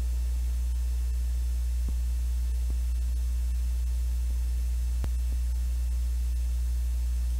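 Steady low electrical hum, like mains hum in the audio line, with a few faint clicks.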